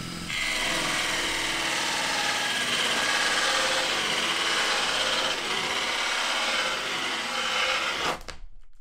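Cordless drill turning a hole saw through lacquered pine cladding, a steady grinding as the saw teeth cut the wood for a light hole. It stops suddenly about eight seconds in.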